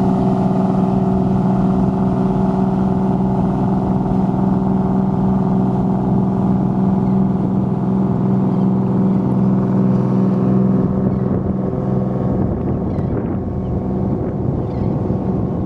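Engines of a passing multi-deck passenger boat running steadily at cruising speed, a deep humming drone that weakens after about eleven seconds as the boat moves off.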